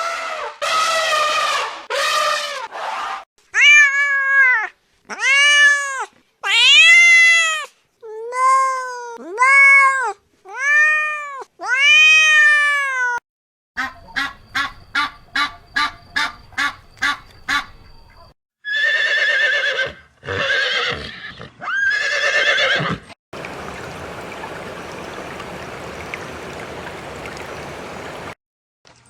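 A cat meowing over and over, about a dozen rising-and-falling meows of under a second each. After them come a quick run of even pulses, a few harsher, noisier calls, and then a steady hiss for about five seconds.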